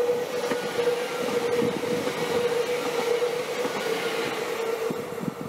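A train passing on the line, its wheels running over the track with a steady tone held underneath; the sound dies away right at the end.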